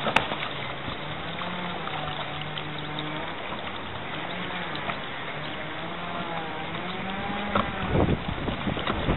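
Small engine of a motorised boat running at a steady speed, its pitch stepping up and down slightly. Near the end, wind buffets the microphone.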